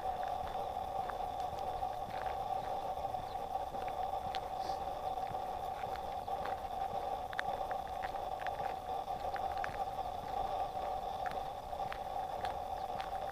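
A slow-moving vehicle rolling along asphalt gives a steady mid-pitched hum with scattered light ticks and clicks.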